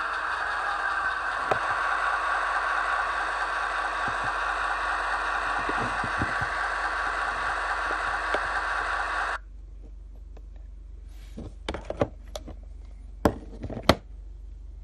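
HO-scale Athearn SW1500 model locomotive running on Stanton Drives, a steady mechanical drone that cuts off suddenly about nine seconds in. A few sharp clicks and knocks follow near the end.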